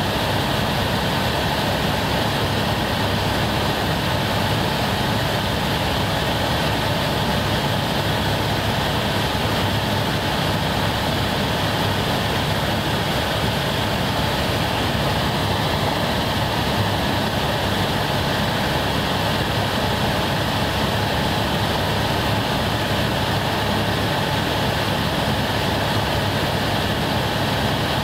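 Helicopter in flight, heard from inside the cabin: the turbine engine and rotor running at a steady, unchanging pitch.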